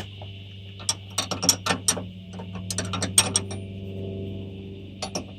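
Metal hand tools clinking and clanking: a quick run of sharp clicks and knocks from wrenches being handled and tried on a power-steering line fitting, thickest in the first half, with a few more near the end.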